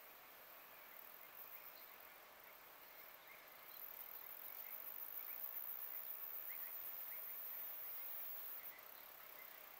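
Faint summer outdoor ambience: a steady high-pitched insect buzz that grows louder about four seconds in and drops back near the end, with scattered soft bird chirps.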